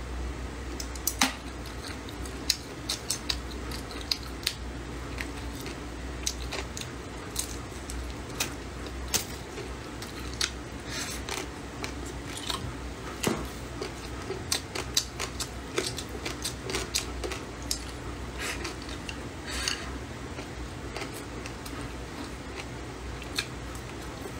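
Close-up eating sounds: chopsticks clicking and scraping against a bowl at irregular moments, with chewing and slurping of stir-fried cured pork. A low steady hum runs underneath.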